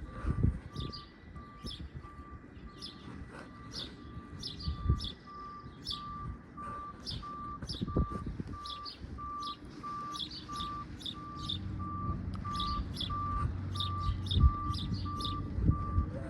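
A vehicle's backup alarm beeps on one steady tone, evenly spaced at about one and a half beeps a second, over a low engine hum that grows louder in the second half. Birds chirp throughout, and there are a few thumps.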